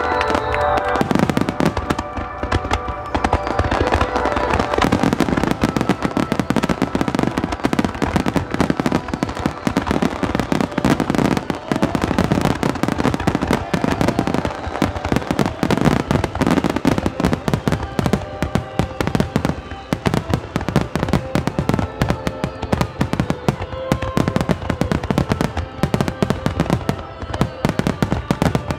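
Fireworks barrage: a dense, rapid run of bangs and crackling bursts that goes on almost without pause from about a second in.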